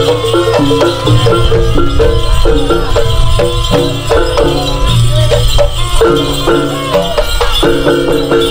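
Traditional East Javanese procession music accompanying a kuda kencak (dancing horse) performance: a repeating stepwise melodic figure over steady drumming, with a rattling, jingling percussion layer.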